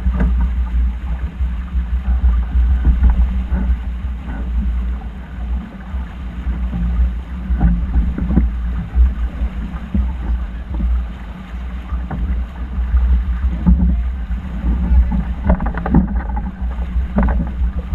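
Wind buffeting the microphone aboard a racing yacht under way, a heavy uneven rumble over the rush of water, with a few short knocks.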